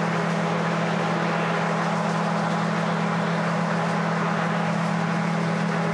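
John Deere 9750STS combine harvester running steadily while harvesting wheat: a constant low engine-and-machinery hum with an even hiss over it.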